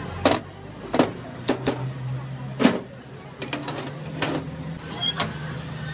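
About nine sharp knocks and clicks at uneven intervals, the loudest about two and a half seconds in, over a steady low hum.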